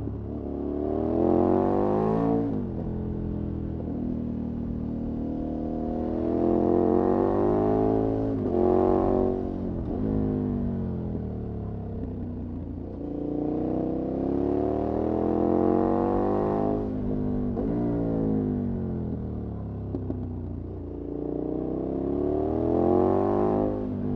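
KTM 1190's V-twin engine through a Remus aftermarket exhaust, under way on the road. Its note climbs with the revs and then drops sharply, about four times over the stretch.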